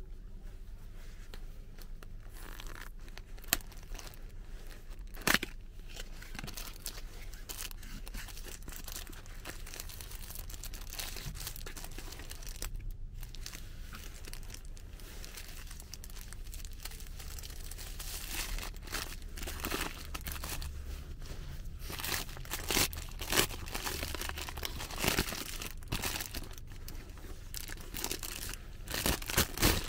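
Cardboard hamburger box being opened by hand, with two sharp snaps a few seconds in, then the paper wrapper around the burger crinkling and rustling as it is unfolded, more often and louder in the second half.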